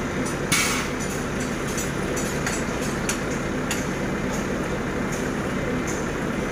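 Heavy diesel engine idling steadily, with a few sharp metallic clinks and knocks over it.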